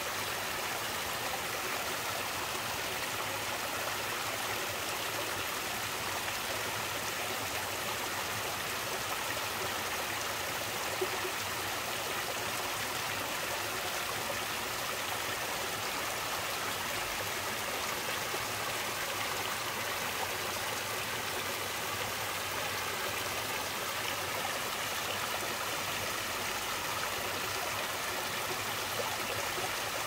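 Shallow creek running over a low rock ledge in many small cascades: a steady, even rush of water.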